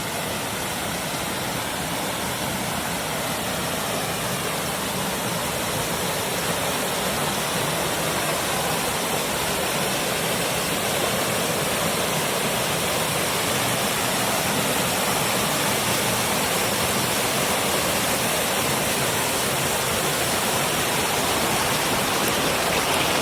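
Waterfall rushing: a steady, dense roar of falling water that grows slightly louder toward the end.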